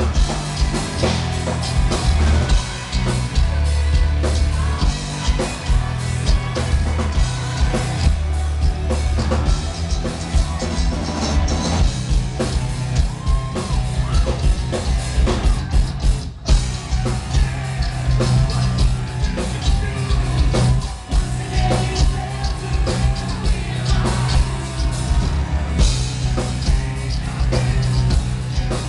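Loud amplified live metal band playing: pounding drums, distorted guitars and heavy bass under female lead vocals, with a momentary break in the sound about halfway through.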